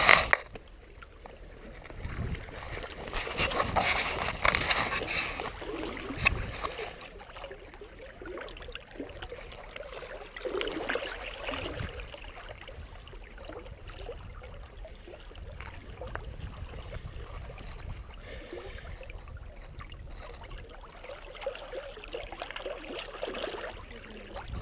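Seawater lapping and sloshing against shoreline rocks close to the microphone, with gurgling. It swells and ebbs irregularly, with one sharper slosh about six seconds in.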